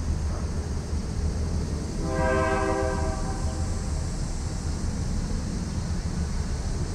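Diesel locomotive horn on an approaching coal train, sounding one blast of a little over a second about two seconds in, over a steady low rumble.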